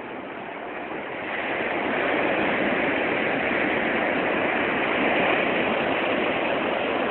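Ocean surf washing onto the beach: a steady rush of breaking waves that swells about a second in and then holds.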